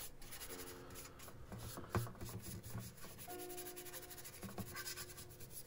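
Cloth rubbing and scrubbing over a CB radio's casing in quick, repeated strokes, as the case is cleaned and polished.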